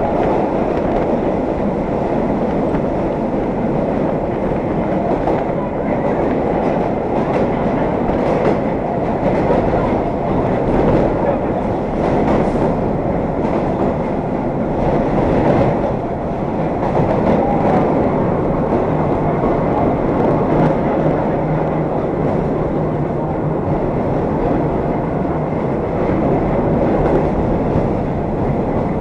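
Vintage IRT Low-V subway car running at speed through the tunnel, heard from on board: a steady rumble with the clickety-clack of the wheels over rail joints.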